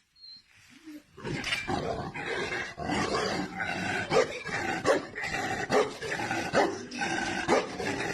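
A dog barking repeatedly, starting about a second in.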